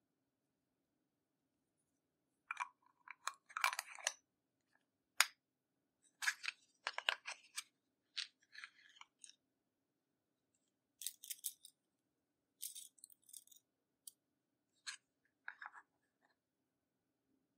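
Crunchy, crackling handling sounds of slime and makeup being worked by hand, in scattered short clusters with quiet gaps between.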